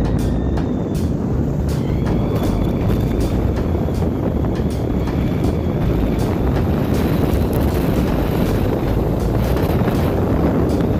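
A car driving on a narrow forest road: steady rumble of tyres and road with wind buffeting the microphone, and frequent light knocks from bumps in the road.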